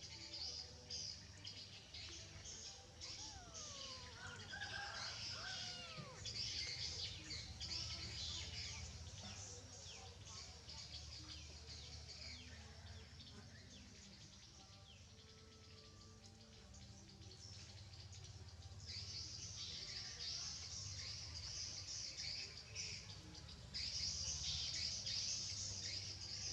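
Dense high-pitched bird chirping, thinning out around the middle and thickening again near the end, with a few rising-and-falling squeals about four to six seconds in, over a steady low hum.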